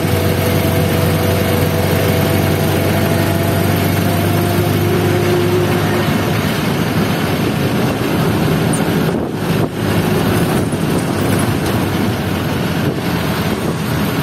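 Engine and road noise from a moving vehicle: a steady engine hum for the first six seconds or so that then fades, under a constant rushing noise, with a short dip about nine seconds in.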